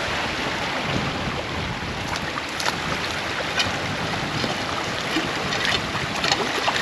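Shallow stream water rushing steadily, with a few short splashes or knocks from wading in it.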